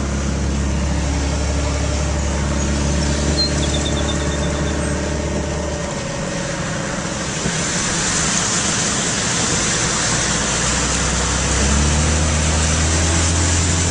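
Car engine idling with a steady low hum that drops away about six seconds in and comes back near the end. From about halfway a steady high hiss rises over it.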